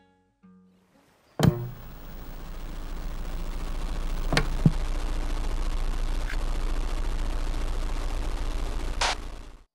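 The last acoustic guitar notes fade out, then a loud click sets off a steady hiss of analogue TV static with a low electrical hum. A few glitchy crackles cross the static before it cuts off suddenly near the end.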